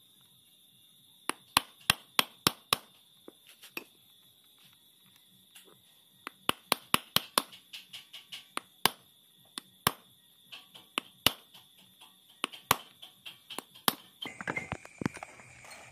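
Ball-peen hammer tapping the steel steering-shaft universal (cross) joint of a Mitsubishi Strada Triton, in quick runs of sharp metal taps with pauses between, driving the worn, loose cross joint out of its yoke.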